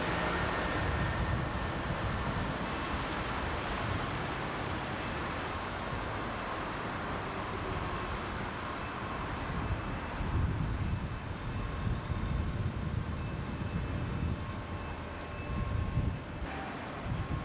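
Steady low rumble of outdoor background noise with a few faint steady tones above it. The low rumble swells unevenly about ten seconds in and again near the end.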